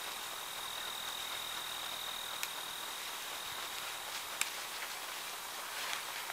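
A steady, high-pitched insect trill on one note that fades out about two-thirds of the way through, over a faint even hiss. Two short sharp clicks sound about two and four seconds in.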